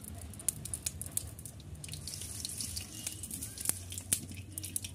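Mustard oil heating in a hot aluminium kadai, crackling with scattered small pops.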